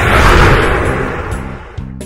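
A loud burst of rushing noise that peaks just after the start and fades away over about a second and a half, over background music.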